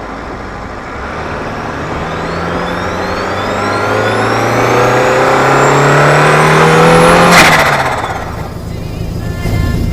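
Turbocharged car engine accelerating hard, its pitch rising steadily for about six seconds, then a short burst of noise as the blow-off valve vents when the throttle closes, after which the engine note drops away.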